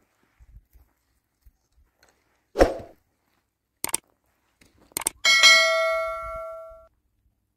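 Subscribe-button animation sound effect: a whoosh, then two mouse clicks, then a bell ding that rings and fades over about a second and a half.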